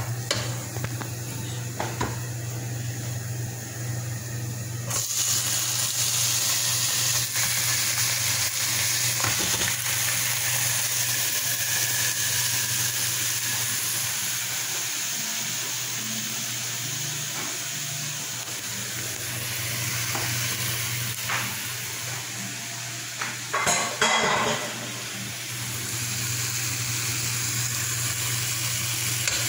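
Chopped onion and chicken pieces sizzling in hot oil in a nonstick pot, stirred with a wooden spatula. About five seconds in, the sizzle grows louder and stays so. There is a short clatter of pots near the end.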